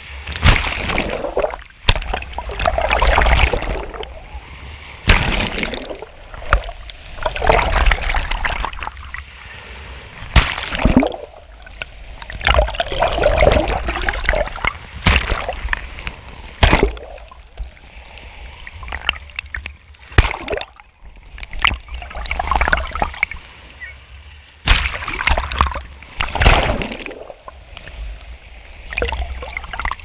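Small sea waves breaking and washing over a camera at the waterline in shallow surf: irregular sloshing and splashing surges every second or two, some with a low rumble.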